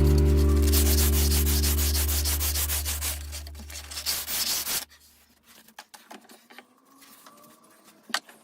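Sandpaper being rubbed by hand over the wooden stock of a black powder rifle in quick repeated strokes, with a low sustained guitar note fading out beneath it. The sanding stops about five seconds in, leaving only a few light taps.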